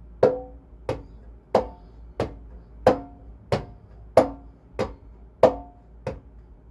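Conga drum played with alternating heel and finger strokes of the hand, the heel-toe pattern. About ten even strokes at roughly one and a half a second, every other stroke louder.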